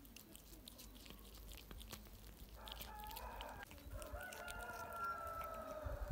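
A cat chewing and tearing at a pigeon carcass, making scattered small clicks. From about two and a half seconds in, a rooster crows, ending in one long, slightly falling note.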